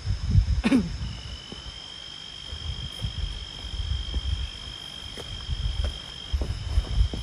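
Insects trilling: a steady high-pitched drone that runs on unbroken. Bursts of low rumbling come at the start and again near the end, and a short falling sound comes under a second in.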